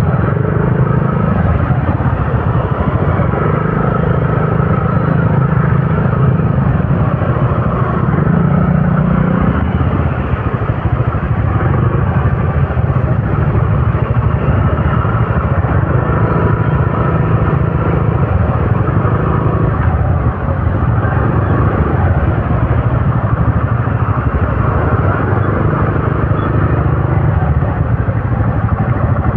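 Many scooter and motorcycle engines running together in slow, packed traffic: a steady, loud engine din with no break.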